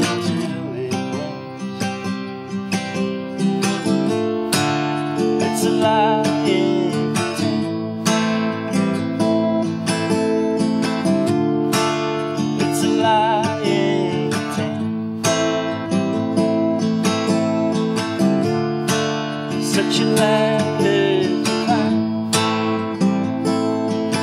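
Acoustic guitar strummed and picked in a steady rhythm, with no singing. A higher melody line with a wavering pitch comes in three times over the chords.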